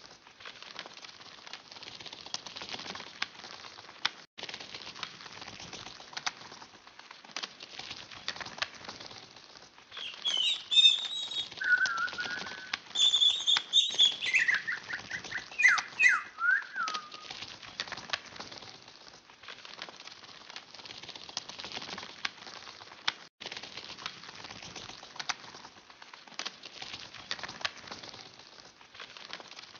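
Bird wings flapping steadily, with chirping, whistled bird calls from about ten to seventeen seconds in, some of them sliding down in pitch.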